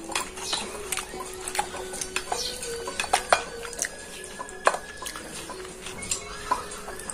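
Fingers mixing rice on a ceramic plate while eating by hand, with scattered clinks and taps of plates and bowls.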